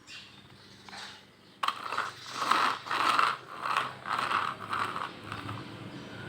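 Plastic toy vehicles being handled, giving a run of ratchet-like clattering that starts suddenly a second and a half in, about two bursts a second, then fades.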